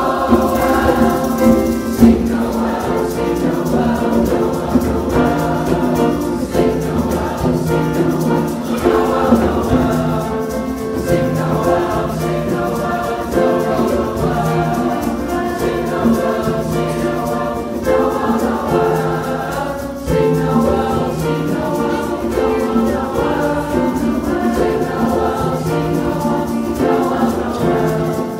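Large youth choir singing in parts, with a regularly repeating low note pattern beneath the voices.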